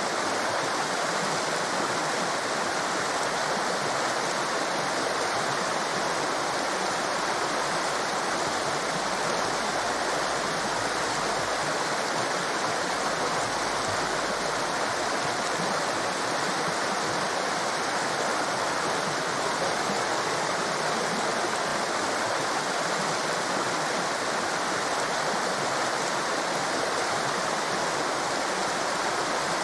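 Torrent of rushing water: a steady, unbroken roar of fast-flowing white water.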